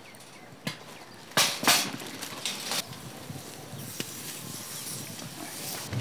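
Wood-ember fire pit being raked with a stick: two loud rushing noises a little over a second in, then a steady hiss from the smoking coals.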